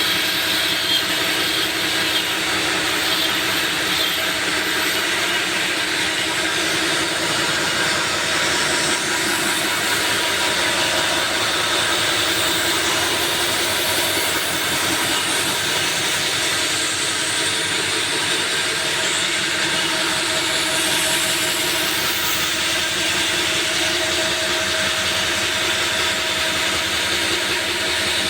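CNC machine running and cutting, a steady, even noise with a few faint steady tones in it that does not pause or change.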